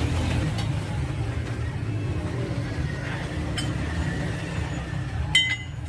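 A steady low rumble with a few faint clicks, and a sharp metallic clink about five seconds in that rings briefly.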